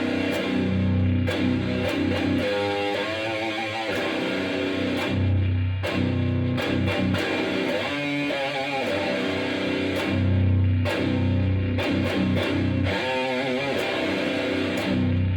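1991 B.C. Rich Platinum Series Bich electric guitar played through a Crate Blue Voodoo 60 amp with a Zoom GFX-1 effects unit, grinding out a slow, heavy sludge riff. Long-ringing low notes alternate with wavering, bent notes higher up, about every five seconds.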